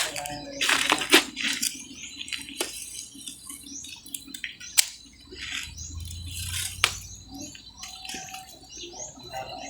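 Water splashing and sloshing in short, irregular bursts, with several sharp clicks.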